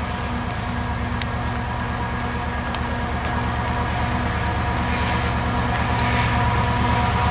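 Freightliner Class 70 diesel locomotive's V16 engine working under power as the train approaches: a steady low pulsing beat with a steady whine over it, growing louder as it nears.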